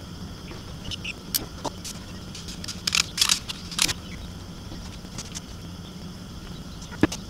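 Scattered light clicks and taps from a soldering iron being handled against the plastic housing and circuit board of a rearview-mirror DVR, with a few brief hissing scrapes and one sharper click near the end, over a steady low hum.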